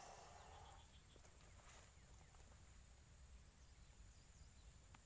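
Near silence: faint outdoor ambience, with a short puff of noise fading in the first moment and a few faint high chirps about a second in.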